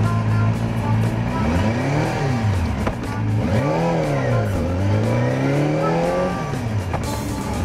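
Honda CBR250R (MC19) inline-four engine idling, then revved up and back down three times in quick succession, each rev rising and falling in pitch, before settling back to idle.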